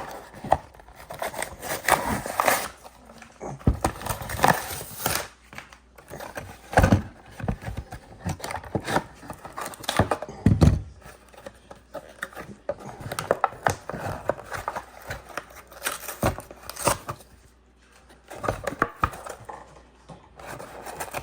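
Irregular clicks, scrapes and knocks of hands fiddling with a new ToughBuilt utility knife while trying to work out how to open it, with a couple of louder knocks along the way.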